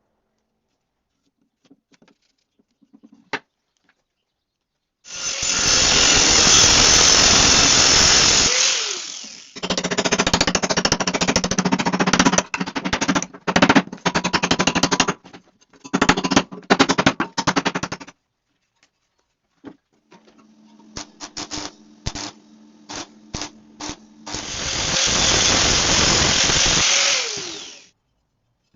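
Angle grinder working steel in two long steady runs, each winding down in pitch after the trigger is released, with choppy, stop-start stretches of grinding and crackling between them.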